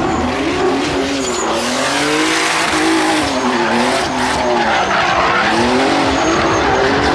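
Drift car engine revving up and down in rapid swings, about once a second, while the rear tyres spin and squeal through a sustained slide.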